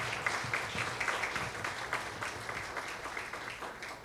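Audience applauding, a dense run of many hands clapping that dies down near the end.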